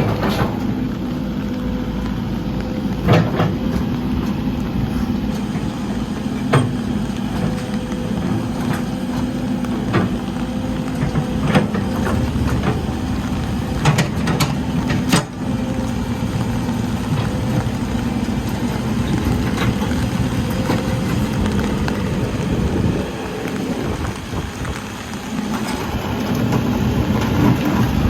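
Caterpillar 308E mini excavator's diesel engine running steadily, with a number of sharp knocks and clunks spread through it.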